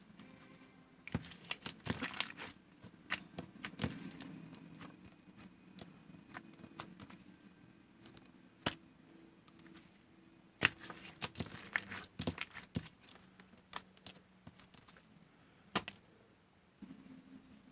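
Slime being handled by hand: irregular crackling pops and clicks, coming in flurries, over a faint steady low hum.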